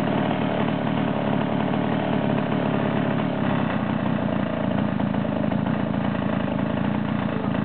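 Ural two-stroke chainsaw engine running steadily at high speed, driving the chain of a homemade chainsaw sawmill through a log.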